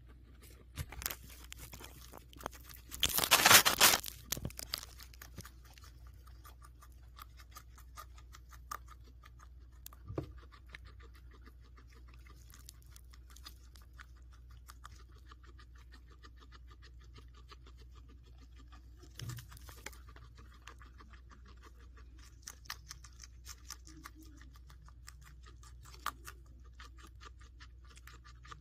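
Guinea pig chewing a piece of cherry tomato, a fast run of fine clicking and crunching, with a louder burst of crackling clicks about three seconds in.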